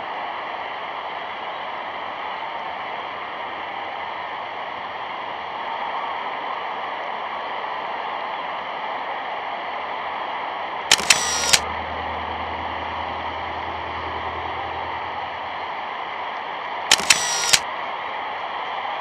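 Steady hiss of an old newsreel soundtrack, broken twice, around the middle and near the end, by short crackling bursts of clicks.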